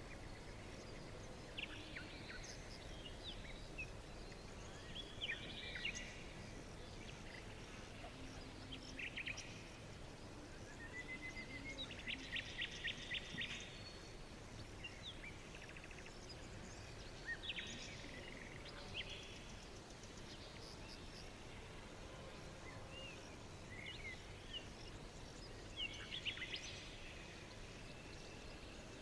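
Songbirds chirping and singing in a forest, a few short calls at a time over a steady faint background hiss. About twelve seconds in, one bird gives a fast trill of rapid repeated notes.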